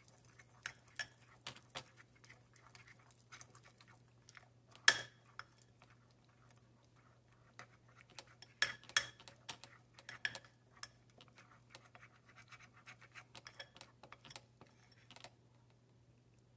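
Spoon scraping and clicking against a small bowl, in irregular light taps with a few louder knocks about five seconds and nine seconds in, as powders are spooned and mixed.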